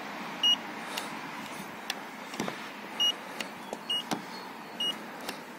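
Handheld paint-thickness gauge beeping four times as its probe is set on the car's painted body panel, one short high beep for each reading taken. There are a few faint clicks between the beeps.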